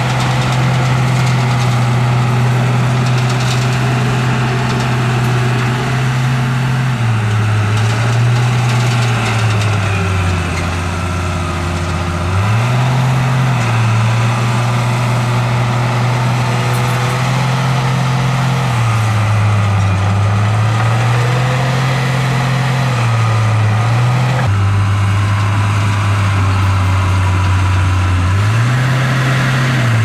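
Heavy earthmoving machine's diesel engine running under load, its pitch stepping up and down between two speeds every few seconds as it works.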